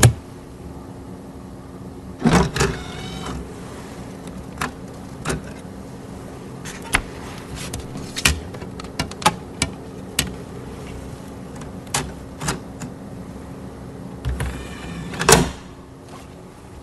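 Scattered clicks and light clatters of plastic CD cases and discs being handled on a desk, over a steady low hum; two louder knocks, about two seconds in and near the end.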